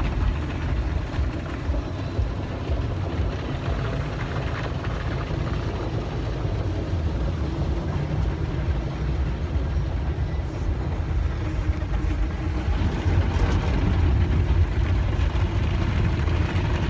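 Automatic car wash working over the car, heard from inside the cabin: a steady rushing of water and machinery with a strong low rumble, growing a little louder in the second half.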